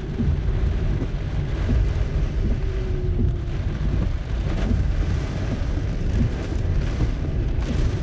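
Typhoon wind and heavy rain buffeting a Daihatsu Hijet Cargo van, heard from inside the cabin: a deep, uneven rumble with a steady hiss of rain on the bodywork.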